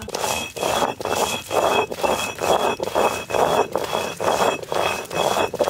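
Stone roller being worked back and forth over a stone grinding slab (ammi kal), rasping as it crushes a spice paste, in an even rhythm of about three strokes a second.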